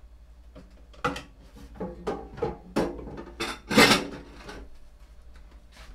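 A metal frying pan and wooden spoon clattering as they are handled and put down: a run of knocks and clunks, the loudest about four seconds in, with a short metallic ring.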